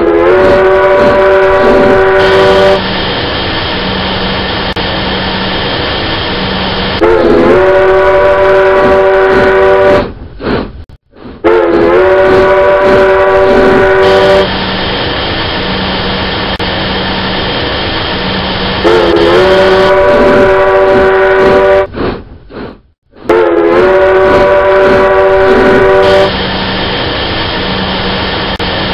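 Train horn sounding long blasts of about three seconds each, several notes together that slide up briefly as each blast starts, with a quieter steady train rumble and low hum between blasts. The sequence repeats about every eleven seconds with a short break, like a looped sound effect.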